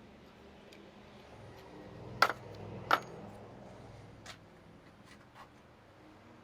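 Two sharp metallic clinks about a second apart, then a few fainter ticks, over a faint low steady hum.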